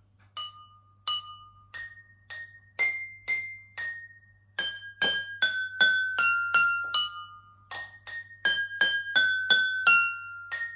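Drinking glasses filled with different amounts of water struck one after another to play a simple tune: a run of clear, ringing pings, each glass at its own pitch. The strikes come slowly at first, then quicken to about two a second about halfway through.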